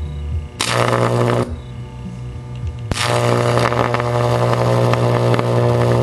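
Old microwave oven transformer (120 V primary, 2,000 V secondary) on and humming, with a high-voltage arc drawn from its output buzzing and crackling loudly: briefly about half a second in, then steadily from about three seconds in.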